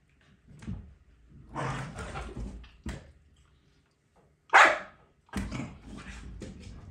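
A Belgian Malinois and a corgi play-fighting: irregular bursts of rough dog noise, with one short, loud bark about halfway through.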